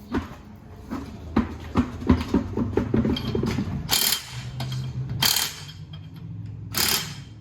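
Lug-nut work on a truck wheel: a run of quick ratcheting clicks, then three short hissing bursts from an air impact wrench, over a steady low hum.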